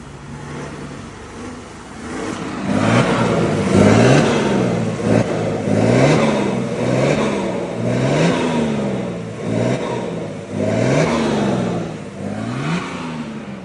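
Chevrolet Silverado's six-cylinder Duramax turbo-diesel revved repeatedly through an aftermarket stainless-steel exhaust. It idles briefly, then about eight quick throttle blips follow, each pitch rising and falling.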